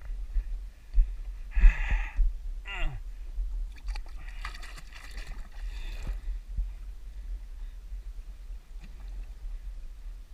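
Wind rumbling on the microphone and water lapping and sloshing against a small boat's hull, with a few brief knocks and rustles about two and five seconds in.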